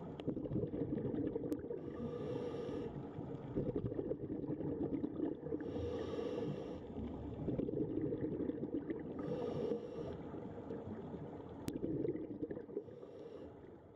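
Underwater recording: a steady low rush of water and bubbles, broken four times by a scuba regulator's breathing hiss, about every three and a half seconds, fading out near the end.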